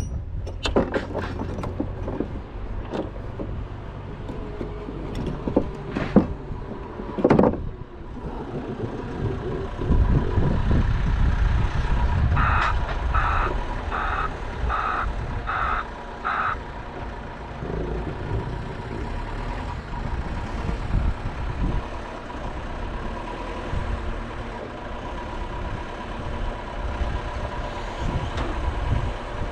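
Vehicle engine running, with sharp knocks and clatter in the first few seconds, then a reversing alarm sounding about six beeps over four seconds in the middle.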